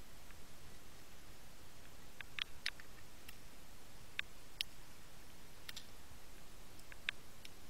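Underwater ambience through a diving camera: a steady hiss with about a dozen short, sharp clicks at irregular intervals, several bunched together a little over two seconds in.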